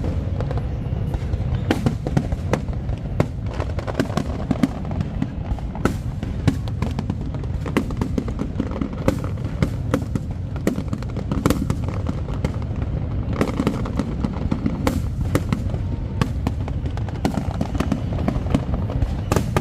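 Fireworks display: a dense, irregular run of bangs and crackles over a constant low rumble.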